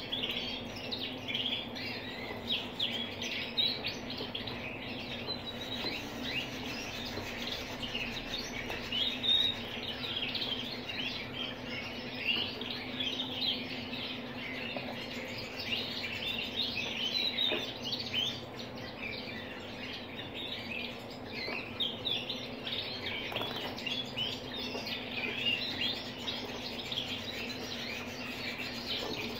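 Canaries chirping and singing in a continuous run of quick, high trills and tweets, over a steady low hum.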